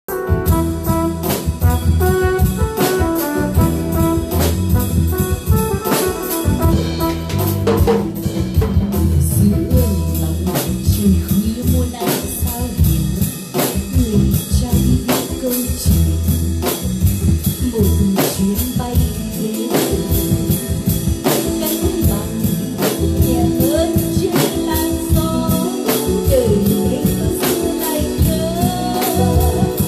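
Yamaha acoustic drum kit played along with a recorded band accompaniment, keeping a steady beat of sharp hits over the sustained instrument lines of the song.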